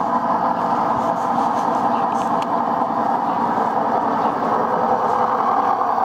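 LG Direct Drive washing machine on its high-speed spin, the drum turning with a steady hum and rattle. The hum comes from the worn rear drum bearing, which is not yet broken up.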